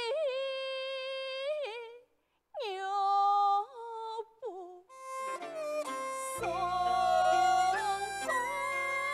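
Hakka opera music: a long, held melodic line with scooping pitch bends, breaking off briefly about two seconds in and resuming. From about five seconds in, the fuller accompanying ensemble joins.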